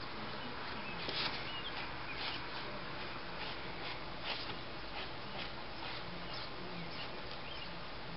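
Pencil drawing on paper: irregular scratchy strokes, the loudest about a second in, over a steady hiss.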